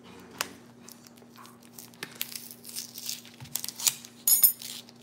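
Plastic wrapper on a pack of hot dogs being cut with a knife and torn open by hand: crinkling and tearing, with a few sharp clicks, busiest in the second half.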